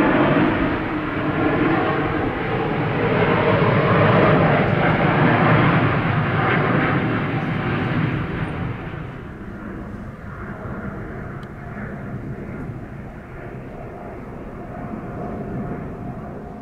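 Jet noise from the twin Rolls-Royce Trent XWB turbofans of an Airbus A350 climbing out after takeoff at full thrust, loud and steady at first. About halfway through it fades and grows duller as the aircraft moves away.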